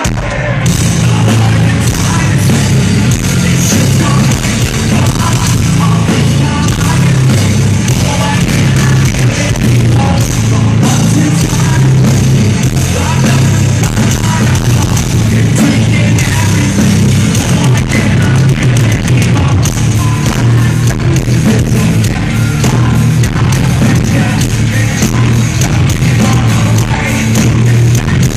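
Live heavy metal band playing at full volume, thick bass and drums with distorted guitars and some vocals. The band comes in hard right at the start. Recorded on a phone and badly overloaded, so the sound is muddy and distorted.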